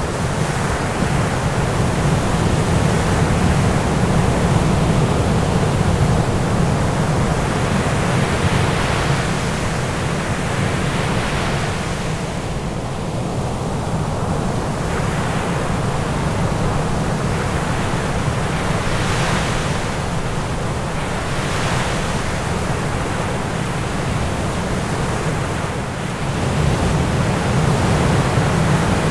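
Ocean surf: a steady low rush with swells of hiss that rise and fade every few seconds, growing a little louder near the end.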